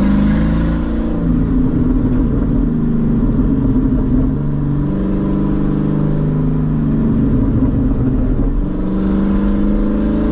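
Straight-piped C6 Corvette's LS2 V8 exhaust, heard from inside the cabin while driving. The engine note drops about a second in, runs steadily for several seconds, then rises again as the car accelerates near the end.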